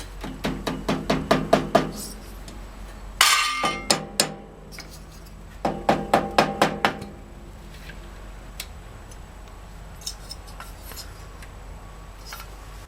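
Hand-tool work on a small engine's cylinder head: two runs of quick metallic clicks, about five a second, with a ringing metal clank a little after three seconds, then scattered faint ticks.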